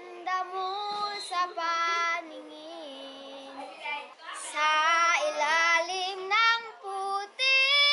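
A young girl singing a melody on her own, holding long notes with short breaks between phrases; the notes waver about halfway through.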